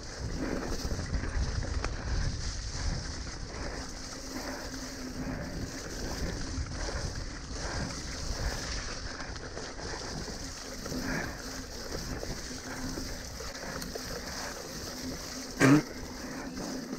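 Mountain bike riding fast over wet, muddy forest singletrack: steady rattle and rumble of the bike over the rough ground, with wind noise on the handlebar-mounted microphone. A brief, loud squeal cuts through about a second before the end.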